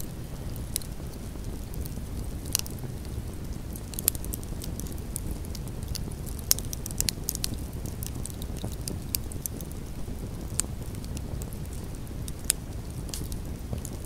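Wood campfire burning: a steady low rush of flames with irregular sharp crackles and pops from the burning logs, about ten louder snaps scattered through.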